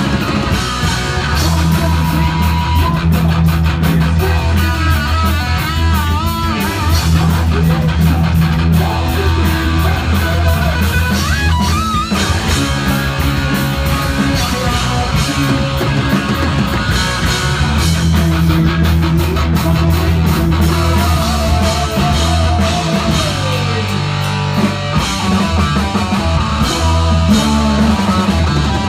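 Heavy metal band playing live, loud: distorted electric guitar over bass guitar and a drum kit, with long wavering notes bent in pitch.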